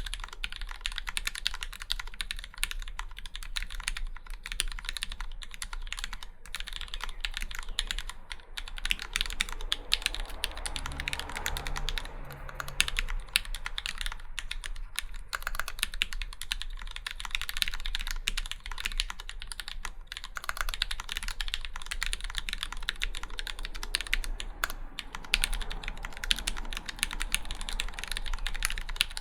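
Steady, continuous typing on an AKNyang acrylic Alice split mechanical keyboard: lubed Gateron Black Ink linear switches bottoming out on an acrylic plate under GMK keycaps, in a rapid stream of keystrokes.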